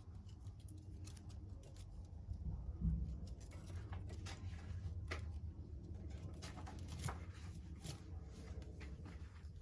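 Baby kittens scrambling about in a basket: light scratches and taps of small claws over a low steady hum, with one soft thump about three seconds in.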